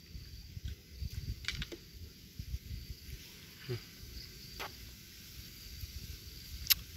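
Wind buffeting the microphone as a low, uneven rumble, with a faint steady high tone and a few sharp clicks, the loudest near the end.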